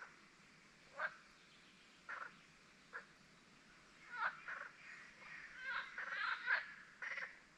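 Birds calling: short single calls about once a second, then a busier run of overlapping calls in the second half.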